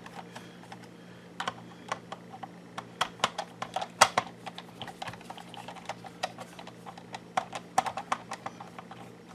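Irregular small clicks and taps of a screwdriver working on a plastic climate control unit as small screws are backed out and the parts handled, the sharpest click about four seconds in.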